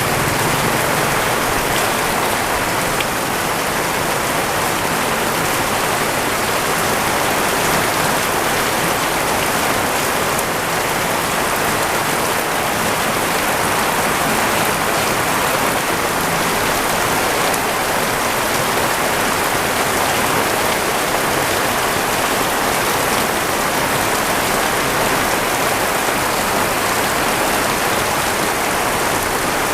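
Heavy rain pouring steadily onto surfaces, a dense unbroken hiss.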